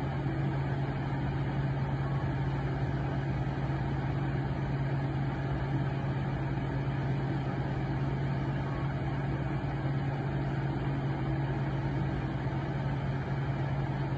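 A steady, unchanging low mechanical hum with a constant drone underneath an even wash of noise.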